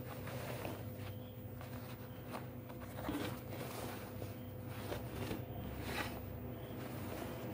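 Cargo trouser fabric rustling and brushing as hands fold and turn the cloth over on a table, in short scattered rustles. The two most distinct come about three and six seconds in. Under it runs a steady low electrical hum.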